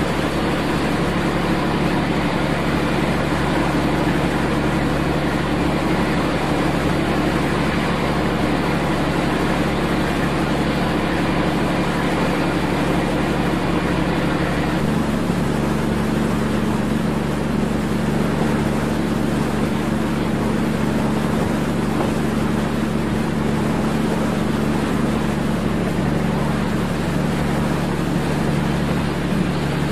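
Ship's engines and machinery running, a steady low drone with a constant hum and noise over it. The tone shifts slightly about halfway through.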